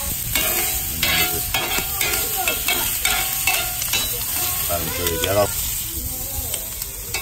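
Squid pieces sizzling on a hot barbecue hotplate, with metal tongs clicking and scraping on the steel as the pieces are flipped and lifted off.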